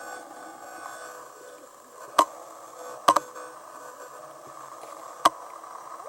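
Zhiyun Rider-M gimbal motors giving off a steady hiss with a faint whine, broken by sharp, loud crunching clicks about two seconds in, a double one about three seconds in, and another about five seconds in: the crunch noise that came with the gimbal's 1.51 firmware.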